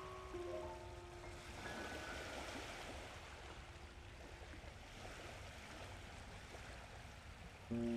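Faint, steady wash of water lapping at a shore. Music fades out in the first second and comes back in near the end.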